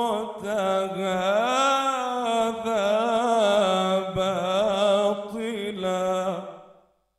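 A man reciting the Quran in the melodic mujawwad style, drawing out one long ornamented phrase whose pitch wavers and bends. The voice dies away near the end.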